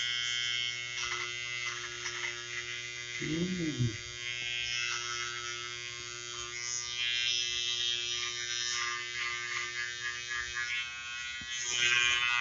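Wahl GroomsMan Pro battery trimmer with its close-shaver foil attachment running, a steady electric buzz as it shaves short mustache stubble. The buzz swells a little near the end.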